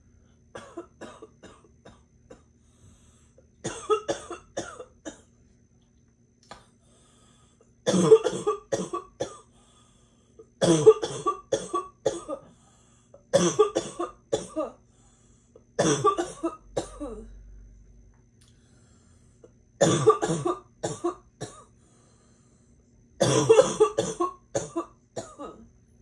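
A girl's barking cough in repeated fits: about eight bouts a few seconds apart, each a quick run of several coughs, the first two quieter than the rest.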